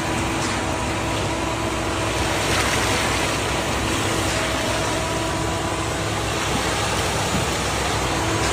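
Ready-mix concrete truck running steadily, its engine humming under a constant rushing noise.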